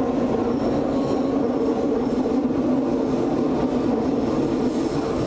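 Running noise of a Hamburg S-Bahn class 472 electric multiple unit, heard inside the passenger car as it travels along the line: a steady rumble of wheels on track, with a brief high squeal near the end.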